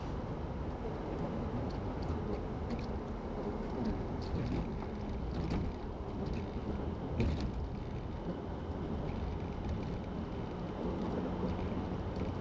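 Car driving at road speed: steady engine and tyre noise, with a few light clicks along the way.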